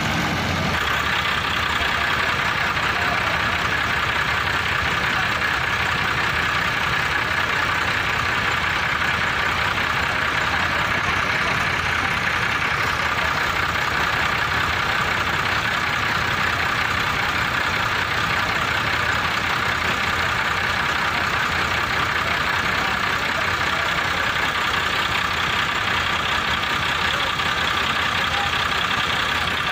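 Massey Ferguson 375 tractors' diesel engines idling steadily.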